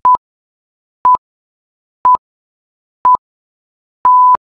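Electronic countdown beeps from a workout interval timer: four short beeps at one pitch, a second apart, then a longer beep of the same pitch about four seconds in that signals the start of the next exercise interval.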